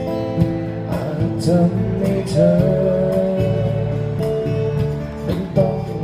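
Live band playing a slow song: acoustic guitar strumming over bass guitar, with regular hand-percussion hits and a gliding melody line above.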